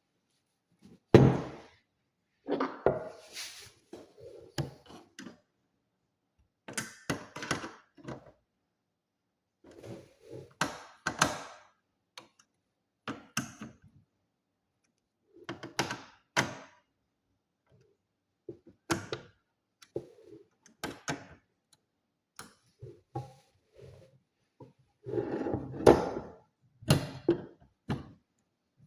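Intermittent thunks, clicks and short rustles of the all-in-one PC's plastic casing and parts being handled and set down on a hard surface during a RAM upgrade, with silent gaps between them.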